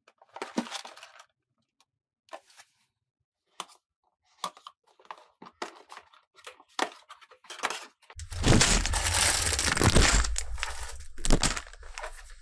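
Cardboard LEGO box handled and its sealed end flap torn open, with scattered short clicks and tears. About eight seconds in, a long loud rustle and crinkle as the plastic bags of bricks slide out of the box.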